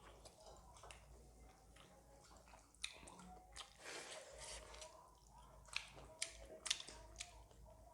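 Faint chewing and wet mouth sounds of a person eating a meal of rice, dal and dried buffalo meat, with a few short clicks and smacks scattered through.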